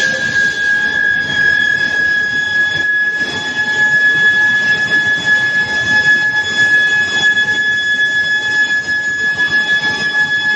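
Induction billet reheating furnace running: a steady high-pitched whine, like an alarm tone, over the constant noisy rumble of the heating line.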